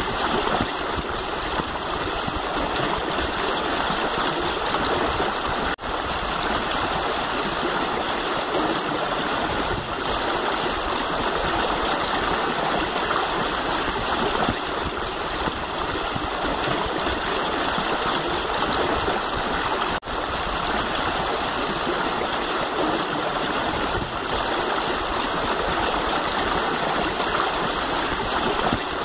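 Steady rushing of flowing water, an unbroken hiss like a stream, dipping briefly twice.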